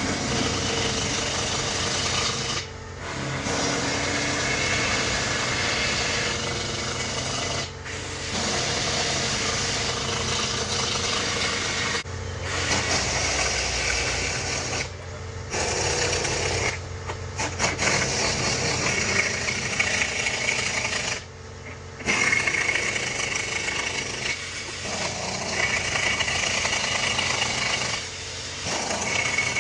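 Air impact wrench hammering on a truck's wheel lug nuts, in several runs of a few seconds each with short breaks between nuts.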